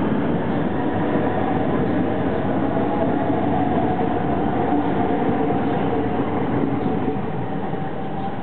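Hitachi-built British Rail Class 395 high-speed electric train pulling out past the platform. Its wheels and rails make a steady running noise, with a faint electric whine from the traction motors. The sound eases slightly near the end as the last car moves away.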